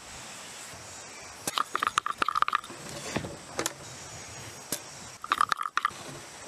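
Two short bouts of clicking and scraping from a carpenter's ink-line reel being handled against a log, with a brief ringing tone in each bout.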